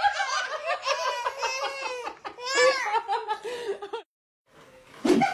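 Baby giggling and squealing in high-pitched bursts, which break off about four seconds in. A moment of silence follows, then other sound starts near the end.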